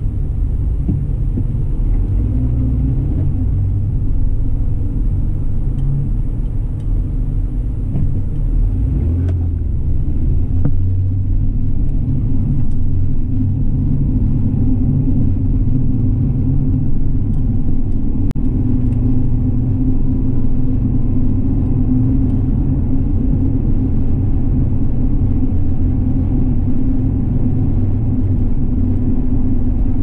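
Car driving: steady low road and engine rumble, growing slightly louder about ten seconds in.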